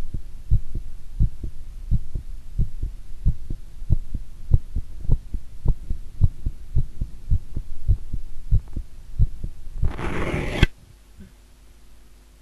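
A human heartbeat, picked up close against the chest, thumps in a steady rhythm of paired lub-dub beats. About ten seconds in, a loud scratchy burst of noise lasts under a second, the beats stop, and only a faint hum is left.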